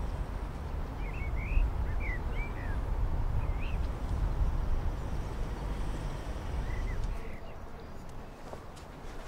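Open-air ambience: a steady low rumble with several short bird chirps scattered through the first half; the rumble drops away about seven seconds in, leaving a quieter background.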